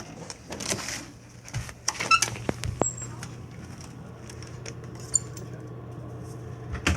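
Clicks and knocks of a cabin door being unlocked with a keycard and pushed open, with a short high electronic beep from the lock. A steady low hum sets in behind about a second and a half in.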